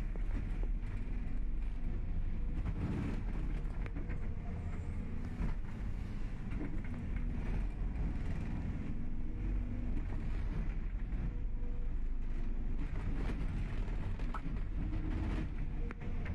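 Excavator diesel engine running under load, its pitch shifting as it works, with scattered knocks and scraping from the ripper working the ground.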